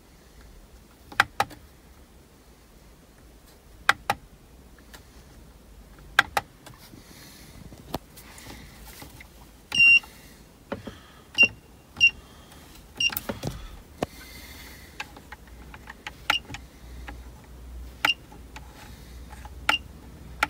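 Buttons being pressed on a car's home-made climate control and boost controller panel: sharp clicks every couple of seconds, and from about halfway on, most presses come with a short, high beep at one pitch.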